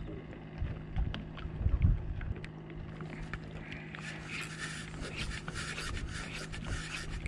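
Fishing rod and reel being handled: a rustling hiss with many fine ticks from about four seconds in. Under it, wind rumbles on the microphone and a steady low hum runs throughout.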